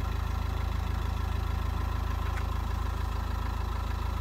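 A vehicle engine idling with a steady low rumble, with a faint click about two and a half seconds in.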